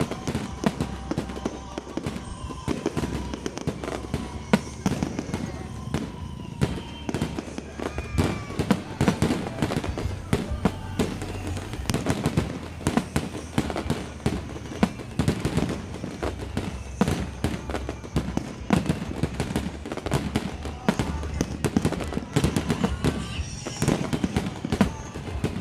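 Aerial fireworks bursting in a continuous barrage: sharp bangs and crackles, many a second, with no pause.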